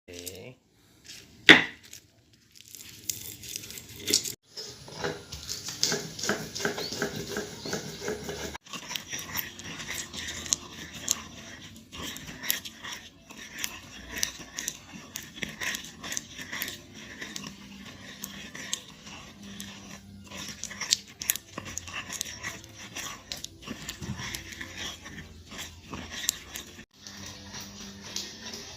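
Close-miked mukbang eating sounds: chewing, crunching and mouth smacks, a dense run of short clicks and crackles with a sharp loud click about a second and a half in. The sounds come in several stretches cut together with brief silent gaps.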